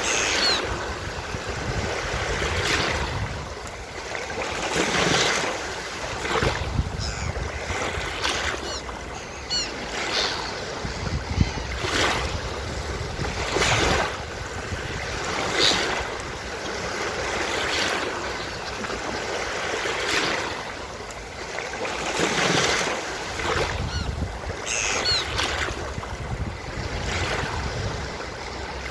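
Waves breaking and washing up a beach, swelling and ebbing every few seconds, with gull calls now and then.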